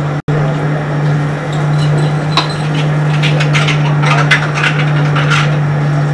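Small glass tea glasses and dishes clinking as they are washed at a sink: a quick run of sharp clinks in the middle seconds, over a steady low hum.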